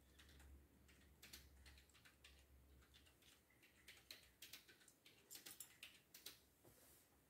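Faint, irregular clicking and clattering of small plastic Lego pieces being handled and sorted through.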